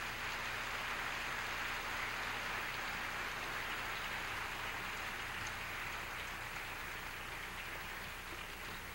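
Audience applauding after a song ends, a steady clatter of clapping that slowly dies away.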